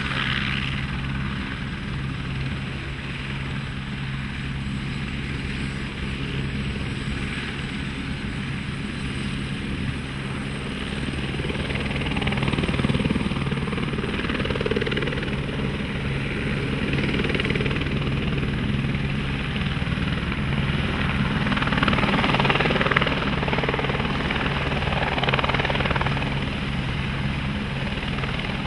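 Helicopter running steadily with its rotor chop and engine hum, under a rushing wash that swells now and then in the second half.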